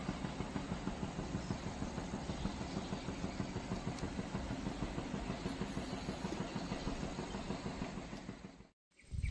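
Small boat engine running steadily at low speed, a fast even putter under a constant hiss, cutting off suddenly near the end.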